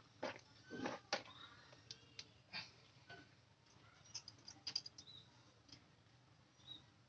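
Faint, scattered clicks and taps, denser in the first few seconds, with a few brief high chirps.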